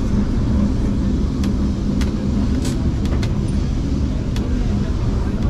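Lisbon Tram 28 streetcar heard from inside, running along its rails: a steady low rumble and motor hum, with a few sharp clicks and clatters from the wheels on the track.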